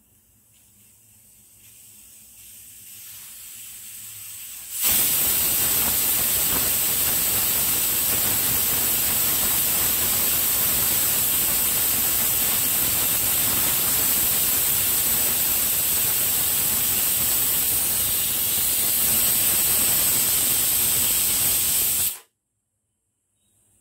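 Aluminium pressure cooker's whistle: a steam hiss swells for a few seconds, then bursts into a loud, steady, shrill jet of steam venting past the whistle weight for about seventeen seconds before stopping abruptly. This is the cooker's second whistle, a sign that it is at full pressure.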